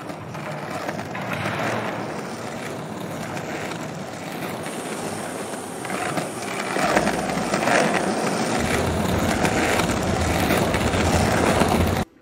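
Small plastic wheels of a four-wheeled dolly rolling across a board, a steady rolling rumble made as foley for a skateboard ride. It grows louder and deeper about seven seconds in and cuts off suddenly near the end.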